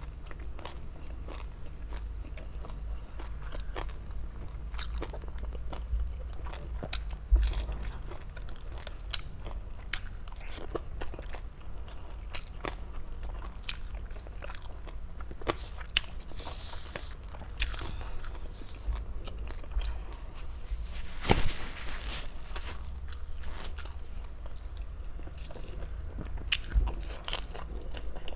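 Close-miked eating: biting and chewing with many short, crisp crunches of crispy deep-fried pork belly (lechon kawali), over a steady low hum. One louder crunch comes about 21 seconds in.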